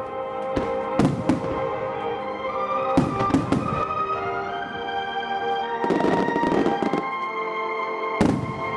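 Fireworks bursting over music: sharp bangs about a second in and a cluster around three seconds in, a second of dense crackling around six seconds, and one more bang near the end.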